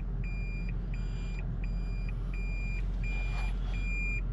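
Toyota Prius hybrid's in-cabin reverse warning beeping while the car backs up: a high steady beep repeating about one and a half times a second, each beep about half a second long, over a low steady cabin hum.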